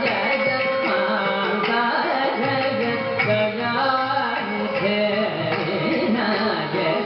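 Carnatic concert music: a man singing in raga Chakravakam, in rupaka tala, with violin following his line and mridangam playing the rhythm.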